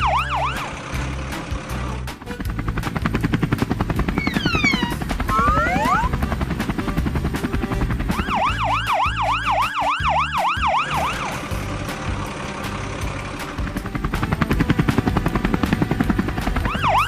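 Cartoon vehicle sound effects: a low, rapidly throbbing engine sound throughout, with a fast up-and-down siren wail about 8 seconds in and again at the end. A few quick sweeping whistles come around the fifth second.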